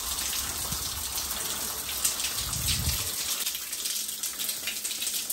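Shower running: a steady spray of water, with a low rumble that fades about three seconds in.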